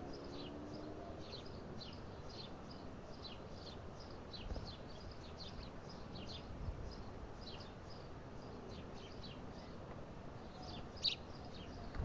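Small birds chirping steadily: many short, quick, high notes, several a second, with one louder chirp near the end. Two soft low knocks fall about midway.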